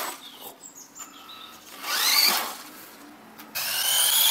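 Electric motor of a radio-controlled toy car whining in bursts as it is driven: a rising whine about two seconds in, then a steadier high whine from about three and a half seconds.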